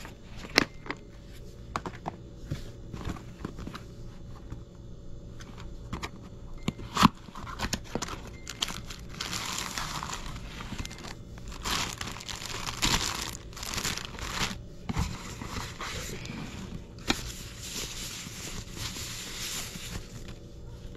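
Packaging being handled during an unboxing. A few sharp clicks and knocks come in the first seven seconds, the loudest about seven seconds in. Then there are long stretches of crinkling and rustling of paper and plastic wrapping, from about nine seconds in and again near the end.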